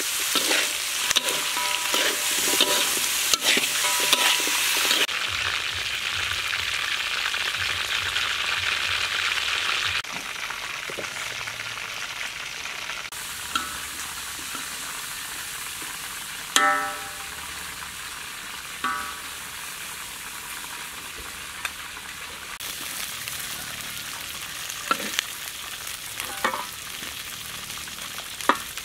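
Chicken pieces sizzling in oil in a hot steel wok while a metal spatula stirs and scrapes them, with frequent clinks against the pan. The sizzle is loudest for the first few seconds and then settles lower. Midway come two ringing knocks of the spatula on the wok.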